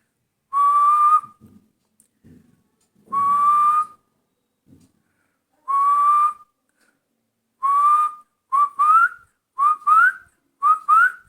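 A person whistling an imitation of a hill partridge's call. Four long, slightly rising whistles come a couple of seconds apart, then quicker pairs of short whistles that slide upward.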